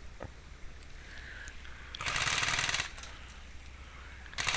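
Airsoft gun firing on full auto: two bursts of rapid shots, each just under a second long, the second starting near the end.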